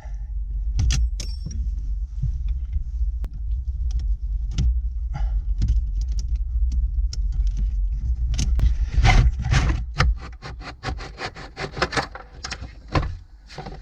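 Irregular metal clicks, scrapes and rattles as an old car radio is worked out of its dashboard slot with two Allen keys used as release tools. The clicking gets busier near the end, over a low rumble that fades out about two-thirds of the way through.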